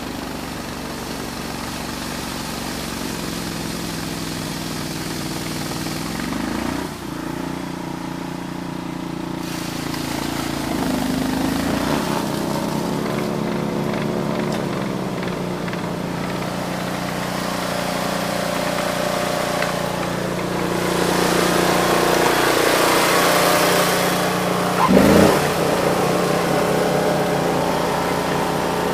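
Eliet Snowbob 9018T tracked two-stage snow blower running under load while clearing snow, its engine note shifting up and down a few times. Near the end the engine note rises sharply and briefly, the loudest moment.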